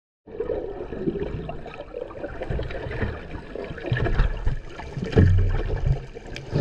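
Water heard through an underwater camera: muffled sloshing and bubbling as swimmers kick beside it, with low thumps, the loudest about five seconds in.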